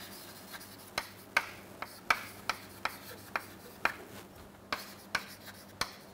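Chalk writing on a chalkboard: short, sharp taps and scratches as each stroke is made, about two a second.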